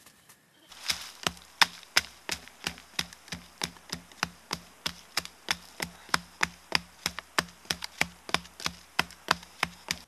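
A handheld tool striking repeatedly into the soil at the foot of an upright bamboo post, a steady run of sharp chopping blows with a dull thud, about three a second. It starts about a second in and stops abruptly at the end.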